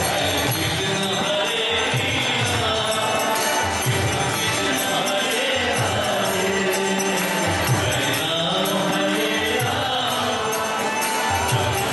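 Kirtan: voices chanting a devotional mantra together, with jingling hand cymbals and a drum beating along.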